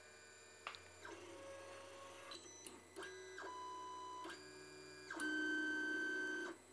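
Stepper motors of an Anycubic i3 Mega 3D printer whining as the print head travels, in a string of short moves each held at its own steady pitch. The pitch jumps at every change of move, the last and loudest move runs near the end, and then it cuts off suddenly.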